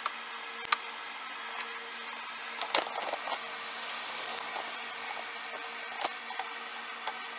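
A few short knocks and clicks of metal on wood, the loudest cluster about three seconds in, as a steel-rail anvil and orange bar clamps are handled and clamped on a plywood bench, over a steady background hum.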